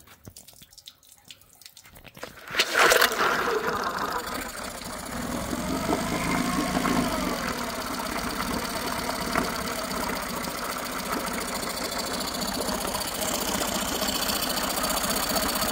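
Yamaha four-stroke twin-cylinder outboard, a 6 hp converted to 9.9 hp with a new carburetor, starting about two and a half seconds in. Its pitch briefly rises and falls, then it idles steadily at around 900 rpm.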